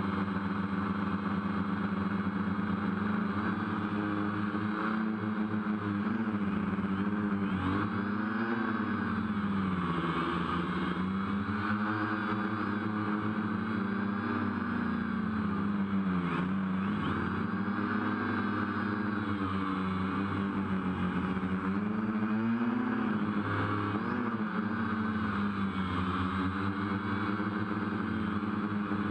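A motor running steadily with a pitched hum whose pitch dips and rises every few seconds, a higher whine swaying along with it.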